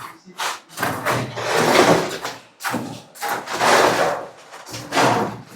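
Wet concrete being poured and worked for a countertop, heard as three long rough scraping sweeps.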